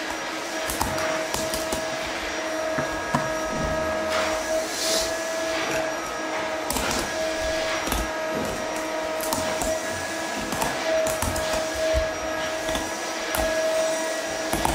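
Steady hum of a small electric motor running throughout, with irregular scrapes and light knocks as a pumpkin is turned and peeled on a wooden table.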